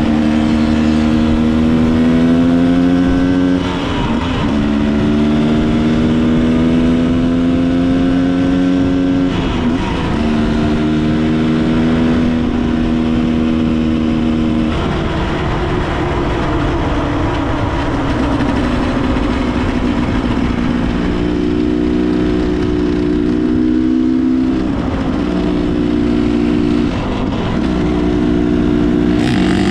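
Enduro motorcycle engine running under way, its pitch climbing slowly and dropping back at gear changes about 4, 9 and 12 seconds in. Later the note turns rougher and unsteady before settling into a steady run again.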